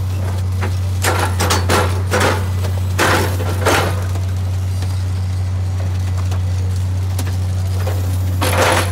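Engine of an NTC track-laying machine running with a steady low drone, with sharp metallic clanks and clinks: a cluster between about one and four seconds in, and another near the end.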